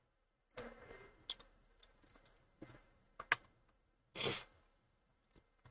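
Faint, scattered clicks and rustles from a person working at a computer, with a brief, louder rustle about four seconds in.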